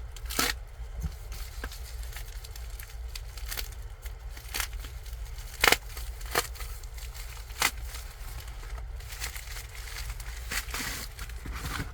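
A mailed cardboard box of comics being opened and its packing handled: scattered sharp clicks and crackles, one louder crack about halfway, and rustling near the end, over a steady low hum.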